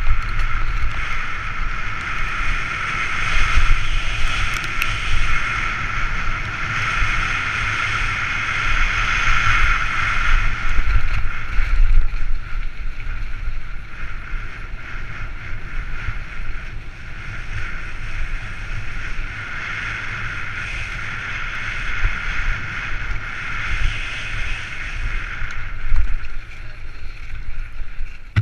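Mountain bike descending a rough dirt trail at speed, heard from a helmet-mounted GoPro: wind buffeting the microphone as a steady rumble, with tyres and bike rattling over the ground. Through it runs a steady high hiss that swells in the first half and again later on.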